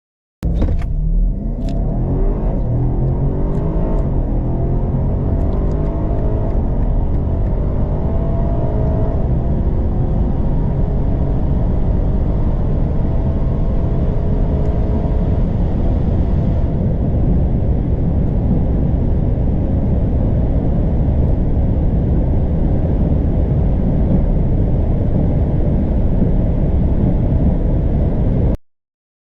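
Twin-turbo V8 sports sedan accelerating flat out. The engine note rises and drops back several times through upshifts in the first ten seconds or so, then gives way to a steady, dense rumble of engine, wind and tyres at high speed. The sound starts and cuts off abruptly.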